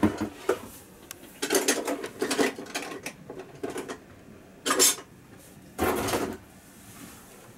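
Kitchen utensils and cookware clattering and clinking as someone rummages through a lower kitchen cabinet, in several short bursts.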